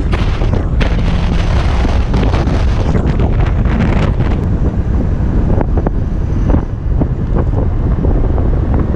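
Heavy wind buffeting the microphone of a camera held outside the window of a moving pickup, with the truck's driving and road noise underneath.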